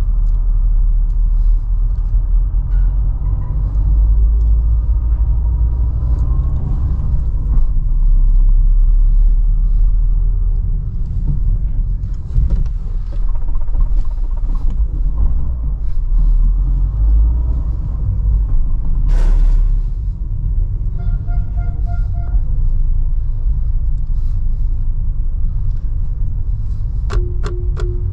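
Steady low rumble of a Renault Sandero Stepway's engine and tyres heard from inside the cabin in slow city traffic. About 21 seconds in, a short run of rapid beeps sounds, and near the end a car horn starts.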